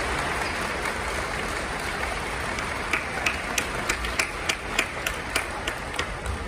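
Audience applause echoing in a gymnasium. About halfway through it thins out into a few sharp, even claps, about three a second.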